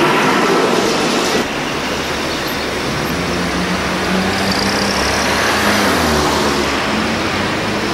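Wellington Volvo trolleybus passing close by with road noise. After a sudden cut about a second and a half in, another trolleybus approaches with a steady hum whose pitch rises and falls gently.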